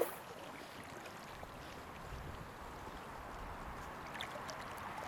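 Steady rush of flowing river current, with a low wind rumble on the microphone joining about two seconds in. A sharp click right at the start.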